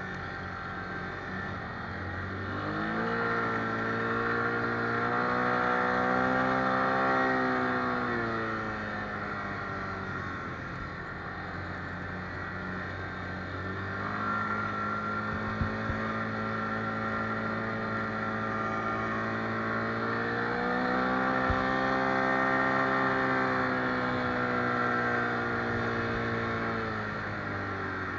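ATV engine under way on a dirt track. It speeds up about three seconds in, holds steady, and eases off near the eight-second mark. It picks up again about fourteen seconds in, climbs higher a few seconds later, and eases off near the end.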